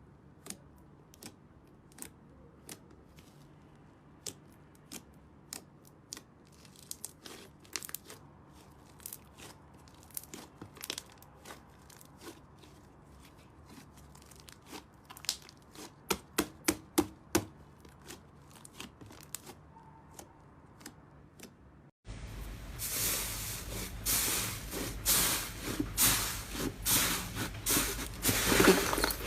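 Slime being squeezed and pressed, giving scattered small pops and clicks. About two-thirds in, it changes abruptly to a louder, dense crackling.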